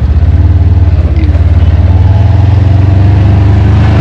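Engine of a farm utility vehicle running as it is driven along, a loud steady low drone that gets a little stronger about halfway through.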